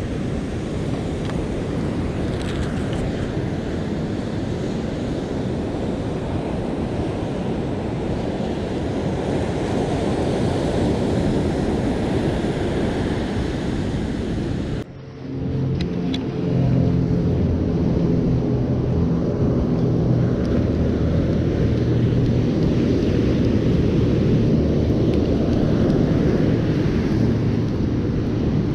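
Wind rumbling on the microphone over ocean surf. About halfway it cuts out for a moment, then comes back louder with a low hum in it.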